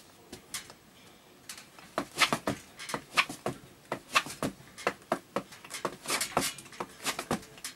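Tap shoes' metal taps striking the floor in a tap-dance step: a few light taps, then, from about a second and a half in, quick runs of sharp clicks.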